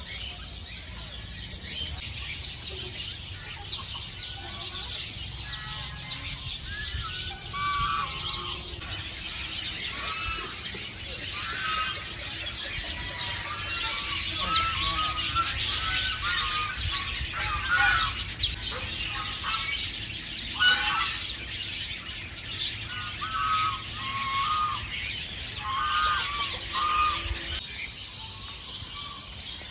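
Many birds chirping and calling together in a dense, continuous chatter, with short louder calls scattered through it; it drops off shortly before the end.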